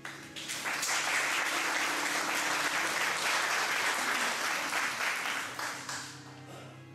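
Audience applauding, many hands clapping: it starts about half a second in and dies away near the end.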